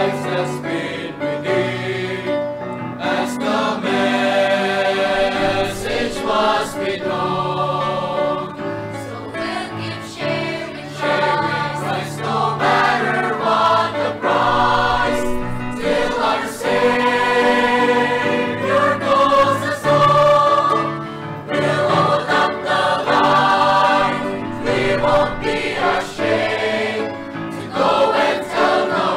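Children's choir singing a gospel song.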